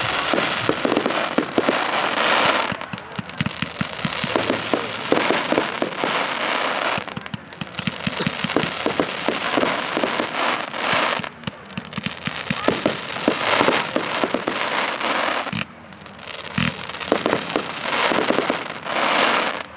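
Display fireworks going off in a continuous barrage of bangs and crackling, coming in waves with brief lulls, then stopping abruptly near the end.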